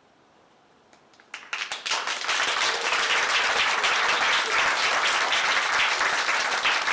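Audience applause: a few scattered claps about a second in, swelling quickly into full, steady clapping from the crowd.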